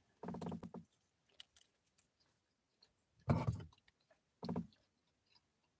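A man's voice in three short sounds: one near the start, and two more about three and four and a half seconds in. Faint small clicks come in between.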